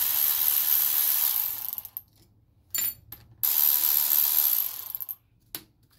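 Cordless electric ratchet running in two runs of about two seconds each, backing out bolts on the end housing of a boat's starter motor, with a sharp click between the runs and another near the end.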